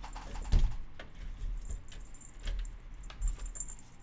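Irregular clicks, knocks and light rattles of a Cooler Master Q300L steel-and-plastic PC case being turned over and set down on a table, with a louder thump about half a second in.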